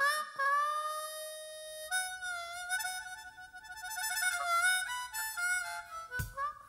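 Solo blues harmonica on a ten-hole diatonic harp, playing an intro lick: a long held note, then shorter notes with pitch slides and wavers. A thump comes near the end.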